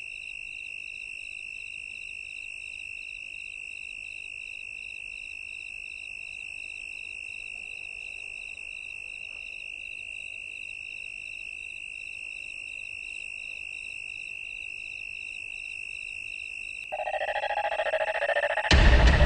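A steady high-pitched electronic tone, like a held ringing or dial tone, with a faint fluttering tone above it. About seventeen seconds in, lower tones join. Just before the end, a loud deep hit comes in.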